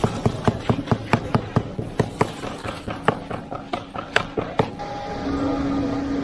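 Rapid, regular clicking, about five a second, that stops about four and a half seconds in, when a steady machine hum takes over.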